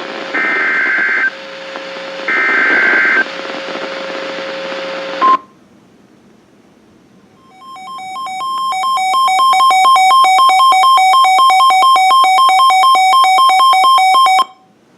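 NOAA Weather Radio SAME alert header: two buzzy data-tone bursts of about a second each over radio static, the digital code that triggers a warning. After a short pause comes a fast-pulsing two-tone electronic alert tone. It swells in loudness, holds for about seven seconds, then cuts off abruptly.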